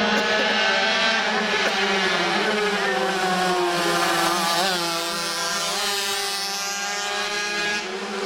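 Several 50cc two-stroke cupper racing mopeds running hard at high revs as they race past. Their high engine notes overlap, the pitch dipping and climbing sharply a few times around the middle.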